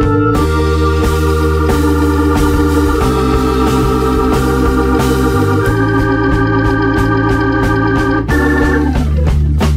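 Background music: an organ-led track with sustained chords changing every few seconds over a steady beat.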